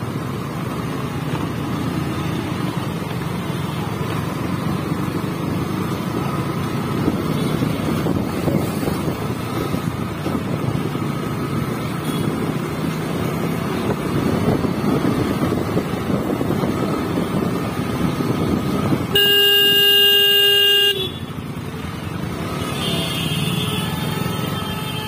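Motorcycle riding through traffic: steady engine, wind and road noise, with one loud horn blast lasting about two seconds, about three-quarters of the way through.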